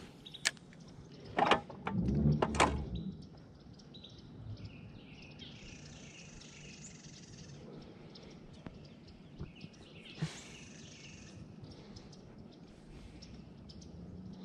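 A few sharp clicks and a low bump from handling a spinning rod and reel in the first three seconds. Faint bird chirps follow twice.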